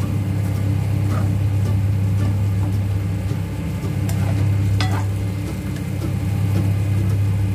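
Spatula stirring enoki mushrooms and tomato in simmering broth in a stainless steel wok, with a few short scrapes against the pan and a steady low hum underneath.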